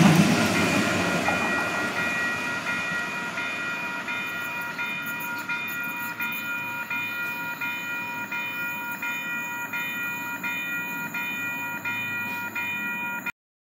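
Calgary C-Train light rail car passing close, its running rumble fading over the first few seconds, while a level-crossing warning bell rings in an even, steady repeat. The sound cuts off suddenly near the end.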